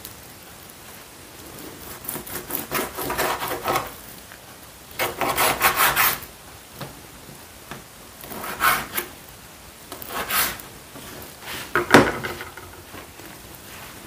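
Kitchen knife cutting raw meat on a chopping board, in several short bouts of back-and-forth strokes.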